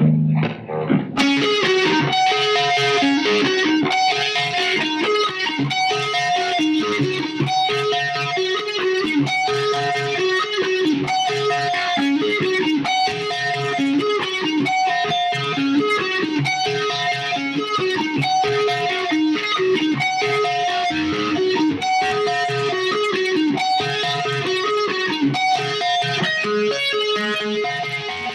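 Electric guitar, a Les Paul copy with stock pickups played through a Line 6 POD GX modelling interface, playing a fast single-note riff that repeats about every two seconds.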